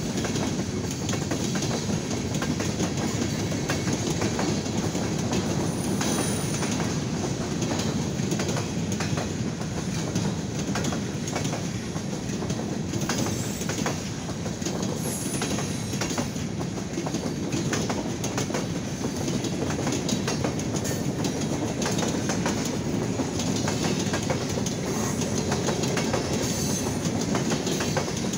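A freight train's cars rolling steadily past: a continuous rumble of wheels on rail, with clickety-clack clicks over the rail joints.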